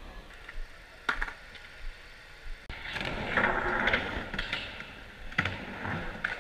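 Skateboard wheels rolling across a wooden half-pipe ramp, starting about halfway through and loudest just after it starts, with a few sharp clacks of the board near the end. Before that, a faint hall background with a single click.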